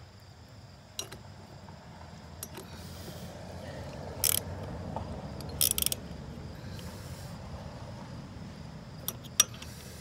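A ratchet wrench tightening a mower wheel's axle nut: a few sharp metal clicks and clinks, a handful about four and six seconds in and two more near the end, over a low rough rumble.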